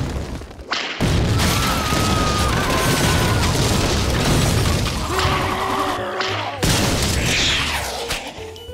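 Cartoon crash and explosion sound effects: a long, loud noisy rumble with breaking glass, starting about a second in, then a second burst near the end that fades away.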